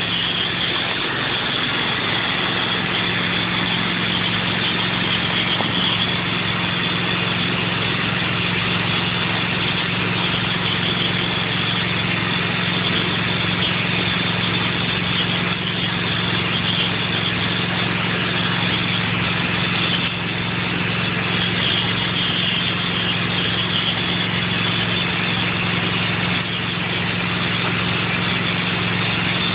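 Pressure washer running steadily while it shoots soap through an X-Jet nozzle: a constant engine hum under a steady hiss of spray.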